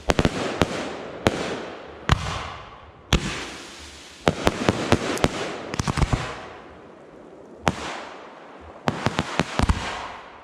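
Firework display: sharp bangs in quick clusters of two to six, each trailing off into a fading rumble. The biggest volleys come about a second in, around four to five seconds in, and again near the end.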